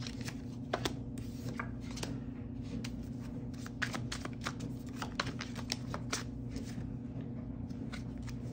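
A deck of tarot cards being shuffled by hand: a steady run of short, irregular card flicks and snaps, over a faint steady low hum.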